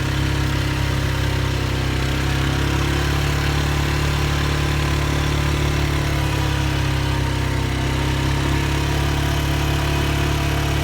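ATV engine running steadily at an even pitch, with no revving.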